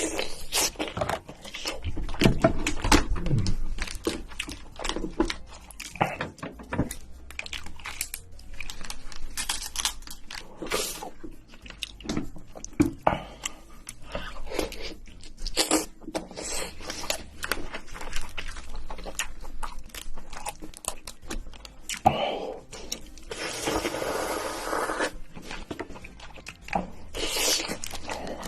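Crab shell cracking and crunching, with chewing and the tearing and scraping of shell and meat in irregular cracks and clicks; a longer stretch of tearing and scraping about three-quarters of the way in.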